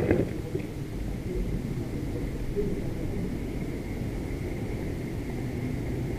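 A short clatter right at the start, then a steady low rumble of H0 model trains running on the layout.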